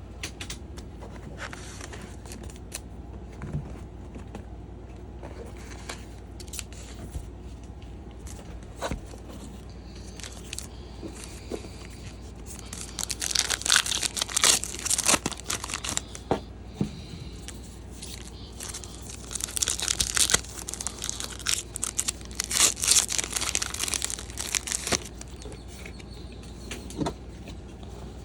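Foil trading-card pack wrappers being torn open and crinkled: two bursts of loud rustling about halfway through and again a few seconds later, after scattered light clicks and taps.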